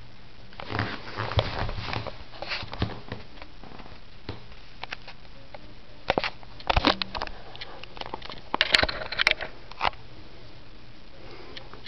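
Handling noise: scattered clicks, knocks and rustling in several short clusters, the sharpest click about nine seconds in.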